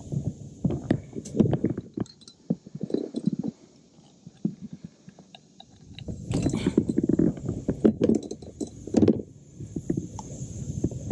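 Close handling noise as a caught snakehead is unhooked and held in a plastic kayak: irregular knocks, rattles and rumbling that pause for about two seconds midway.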